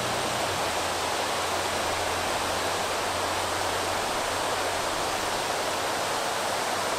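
River water pouring over a low mill dam, a steady, even rush.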